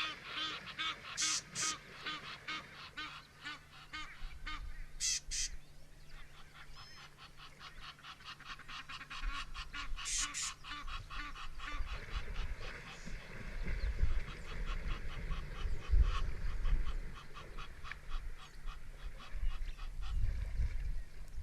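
Birds calling: a dense run of rapid repeated calls with a few louder bursts, and a low rumble joining about halfway through.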